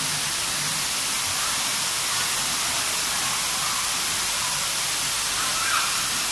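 Water falling from above in a steady curtain onto a shallow tiled pool, giving a continuous rushing hiss of splashing water.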